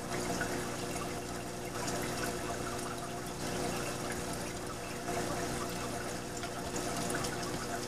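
Reef aquarium's circulating water: a steady trickling and splashing of pump-driven flow, over a steady hum from the running pumps.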